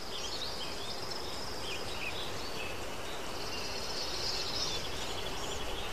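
Outdoor nature ambience: a steady faint hiss with scattered high chirps and short trills, and a buzzier trill about four seconds in.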